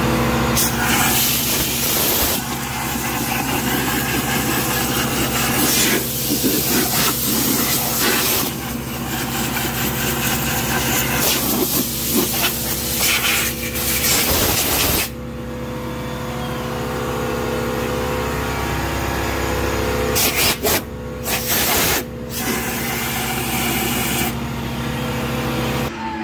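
Compressed-air blow gun hissing as it blows debris out from around a truck fender. It goes in one long blast through the first half, then a few short blasts near the end, with a steady low hum underneath.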